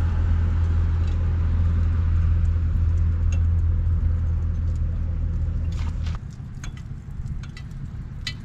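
Steady low mechanical hum that cuts off abruptly about six seconds in, leaving faint scattered clicks.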